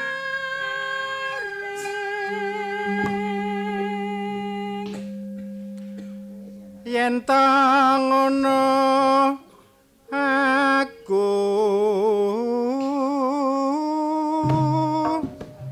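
Javanese singing in a kethoprak broadcast: a voice holds long notes at first, then sings phrases with a wavering vibrato, with short breaks between phrases.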